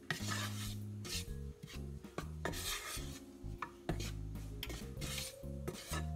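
A kitchen utensil rubbing and scraping against a small saucepan and its lumps of butter and flour, in several separate scraping strokes, with soft background music underneath.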